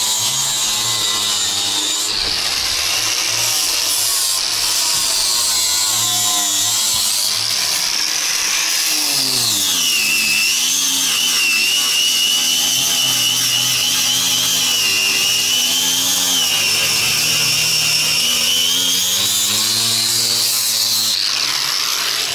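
Handheld electric power tool running continuously against the old wooden door, a high motor whine that sags in pitch under load about ten seconds in and picks back up near twenty seconds, winding down just before the end.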